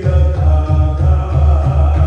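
Music: voices singing over a steady low beat about twice a second.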